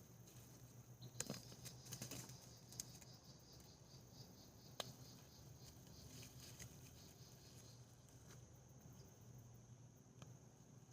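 Faint scattered rustles and small clicks of hands digging through soil and sweet potato vines, over a steady high insect chirring.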